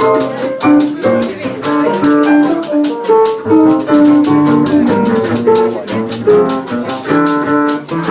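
Live jazz combo playing an instrumental passage: a melodic line of plucked string notes over a steady percussion pulse of shaker and cymbal ticks.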